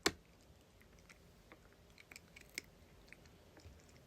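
Cat chewing a lobster treat: faint, irregular little crunches and clicks, with one sharper click right at the start.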